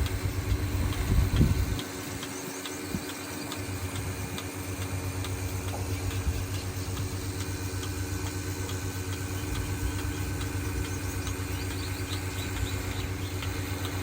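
A motor or engine running steadily, with a constant hum and a light regular ticking about twice a second; a deeper rumble underneath drops away about two seconds in.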